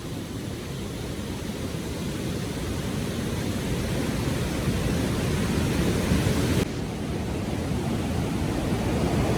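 Steady rush of water from the waterfall and its fast-flowing river, growing gradually louder, with a sudden drop in level about six and a half seconds in before it builds again.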